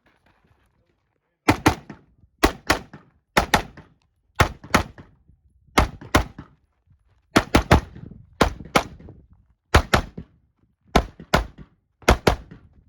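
AR-15-style semi-automatic rifle fired in quick pairs of shots, about one pair a second, with one group of three near the middle: double taps on a string of targets.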